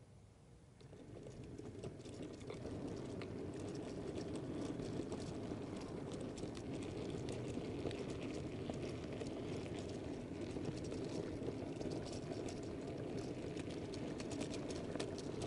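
Model railway goods train pulling away and running on the track, its wagon wheels rolling with a steady rumble and a quick patter of clicks over the rail joints, heard close up from a camera riding in the guards van. The sound starts about a second in and builds over the next couple of seconds.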